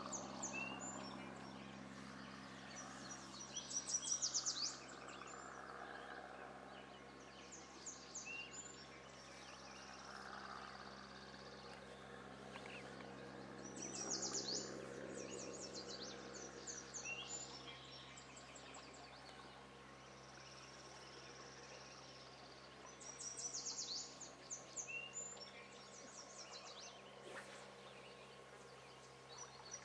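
A songbird singing a short, high, rapid phrase three times, about ten seconds apart, with a few single chirps between, over faint steady outdoor background noise.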